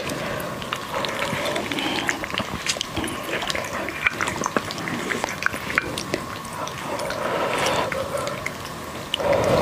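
Wet, sticky squelching and smacking as gloved hands pull apart a sauce-coated braised pork trotter, with many small clicks and crackles.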